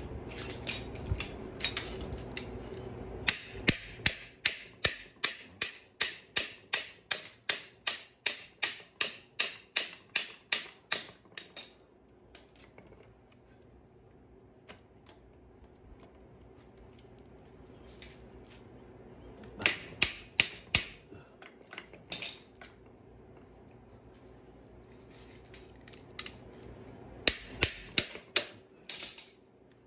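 Ratchet wrench clicking in quick, even strokes, about three a second, turning the threaded rod of a coil-spring compressor on a strut assembly, then two shorter runs of clicks later on.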